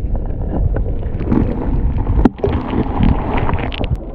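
Wind buffeting the microphone over moving water: a steady low rumble with scattered small clicks and splashes. It cuts out briefly a little past halfway, then carries on.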